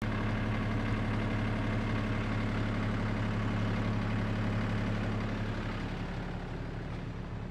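Red compact tractor's engine running steadily with a low, even hum, easing off slightly near the end.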